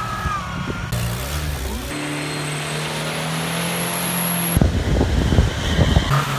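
Engines of off-road vehicles revving hard while spinning donuts, in quick cut clips: a side-by-side buggy, then an all-wheel-drive car holding a steady high engine note. For about a second and a half past the middle, a rapid clatter of knocks and rattles sounds over the engine, as wheels throw mud and debris.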